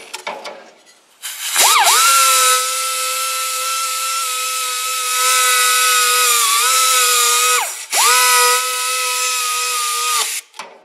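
Pneumatic right-angle air grinder with a small abrasive disc running at a steady high whine over a loud air hiss, dressing the pitted exhaust manifold flange face. It spins up about a second and a half in, runs about six seconds with a brief dip in pitch, stops, then runs again for about two seconds.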